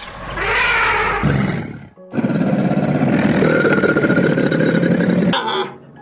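Elephant calling: a short call that rises and falls in pitch, then after a brief break a loud, harsh roar lasting about three seconds, with a short last burst near the end.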